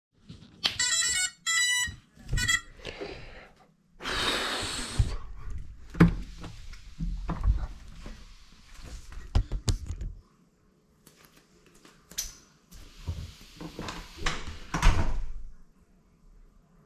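A quadcopter drone gives a few short electronic beeps as it powers up. Then come knocks, thumps and rustling as the drone is handled and set down on a hard floor.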